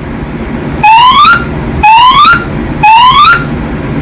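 A fire alarm evacuation system sounds its whoop tone three times. Each whoop rises in pitch for about half a second, with half-second gaps between them: a three-pulse evacuation signal played between the recorded voice messages. A steady low hum runs underneath.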